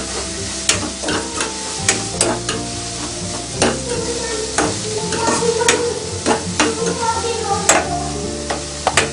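Sliced onions and green chillies sizzling in hot oil in a non-stick pan as they are stirred and sautéed, with irregular clicks and scrapes against the pan about once a second.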